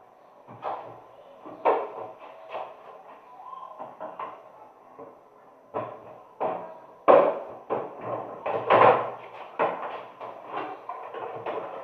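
Plastic and metal parts of a washing machine being handled: irregular clicks, knocks and rattles, loudest about seven and nine seconds in.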